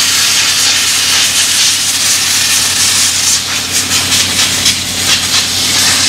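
Compressed air hissing steadily from a blow gun as it blows dust out of a motorcycle air-filter screen, over a steady low hum.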